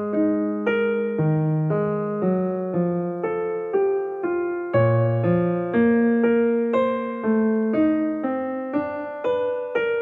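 Background music: a piano playing a gentle melody over chords, each note struck and then fading, about two notes a second.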